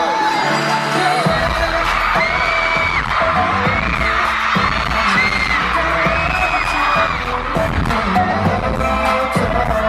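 K-pop dance-pop track with singing, played loud at a live performance. The bass drops out for about the first second, then comes back in.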